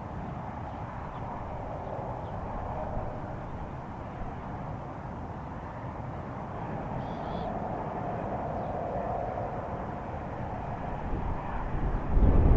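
Low, steady outdoor rumbling drone with a faint wavering hum riding over it, swelling louder near the end; the recordist takes it for a strange sound coming from the sky.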